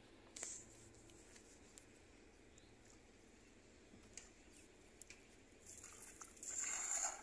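Quiet outdoor ambience with a few faint clicks and patters, then a louder noisy scuffing burst lasting about a second near the end.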